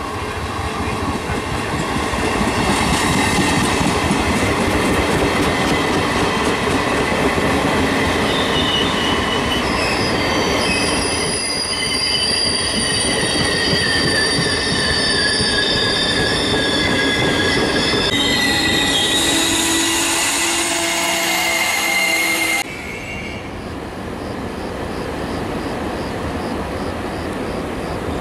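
Regional passenger train of MDVC-type coaches running past on the station tracks, wheels rumbling over the rails with high-pitched wheel squeal. The sound cuts off suddenly about two-thirds of the way through, leaving quieter rail noise.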